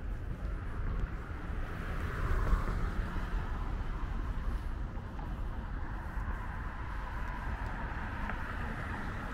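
Road traffic: cars passing on a multi-lane street, their tyre noise swelling about two to three seconds in, over a steady low rumble.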